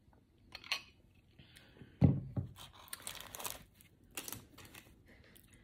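Handling sounds at a table: a solid knock about two seconds in, then crinkling of a paper sandwich wrapper, with a few lighter clicks.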